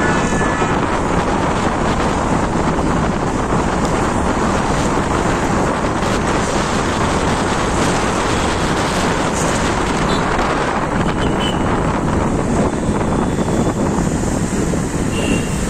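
Steady wind noise buffeting the microphone of a moving bike, over the continuous rush of road traffic.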